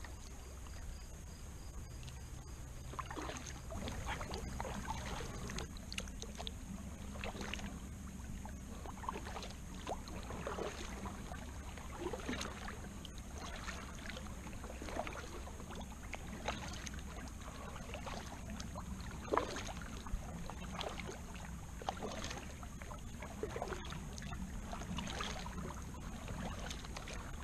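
Double-bladed kayak paddle dipping into calm lake water in a steady rhythm, a short splash and drip about once a second, over a low steady hum.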